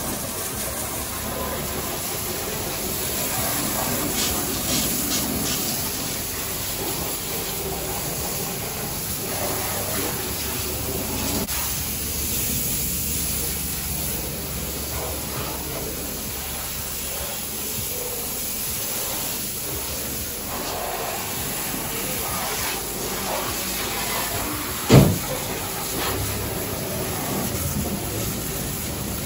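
Water spray hissing steadily during a car wash, with one sharp knock near the end.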